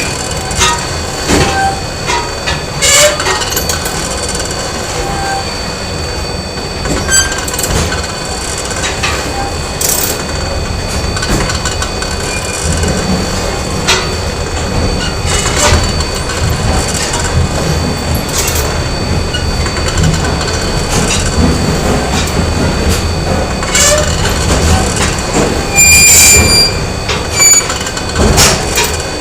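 Factory machinery running with a steady low rumble and a few constant high-pitched tones, broken by irregular metallic clanks and knocks. A loud, dense clatter comes near the end.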